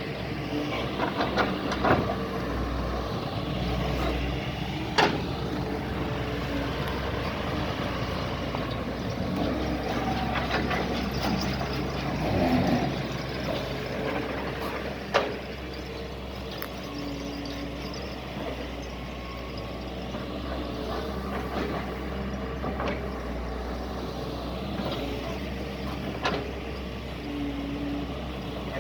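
Doosan DX140 hydraulic excavator running steadily under working load, with a few sharp metallic knocks from time to time.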